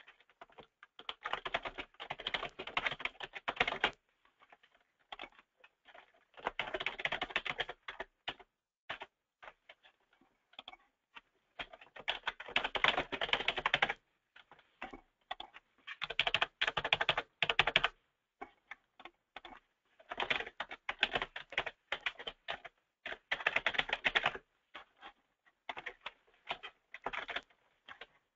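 Computer keyboard typing in bursts of rapid key clicks, each run lasting two or three seconds with short pauses between.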